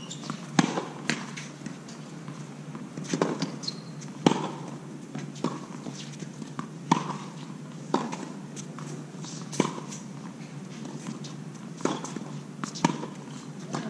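Tennis balls struck by racquets and bouncing on a hard court in a rally: sharp pops every one to two seconds, some louder than others.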